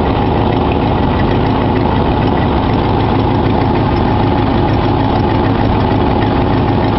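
Rebuilt Cadillac 429 V8 idling steadily, heard close over the open engine bay. Its note holds even, with no revving.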